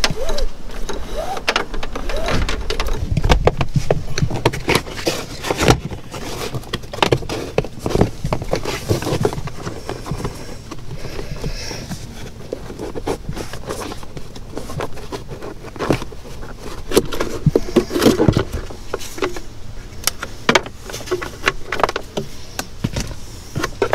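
Irregular clicks, clacks and rattles of hands and tools working on a car interior: plastic trim pieces and a plastic glove-box bin being pried, handled and fitted.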